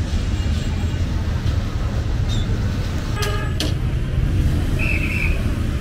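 Road traffic running steadily, with a short vehicle horn toot about three seconds in and a brief high tone near the end.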